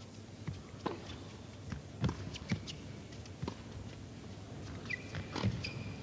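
Tennis rally: a tennis ball struck back and forth by rackets, sharp hits about a second apart over a low steady crowd background.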